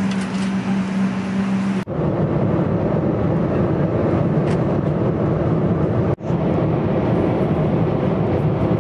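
Airliner cabin noise: a steady roar of engines and rushing air. In the first two seconds, while the plane taxis, a steady low hum sits over it. The sound drops out briefly twice, about two seconds in and about six seconds in.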